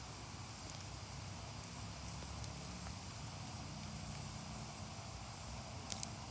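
Wood fire burning with a steady low rush and occasional faint crackles; two sharp pops close together near the end.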